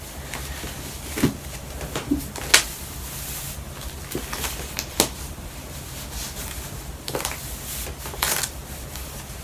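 Handling and rustling of a knee brace and clothing as it is fitted on the knee. A few short, sharp sounds are scattered through it, over a steady low hum.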